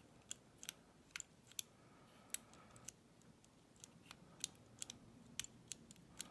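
Faint, irregular metal clicks and ticks, about a dozen, of a pick wire and tension tool working the levers inside a small Ace 4-lever padlock.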